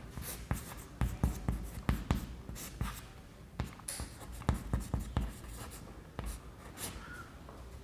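Chalk writing on a chalkboard: irregular taps and short scratchy strokes as letters are written.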